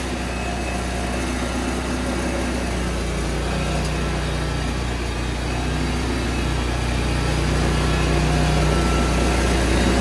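Engine of a Vigorun MTSK1000 remote control flail mower running steadily, just after starting, getting a little louder in the second half.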